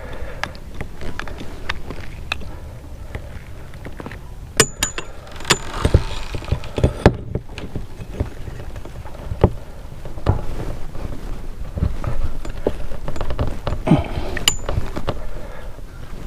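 Scattered small clicks and knocks of hand tools and metal parts being handled while wiring a shore power connector, a few of them louder, over a steady low hiss.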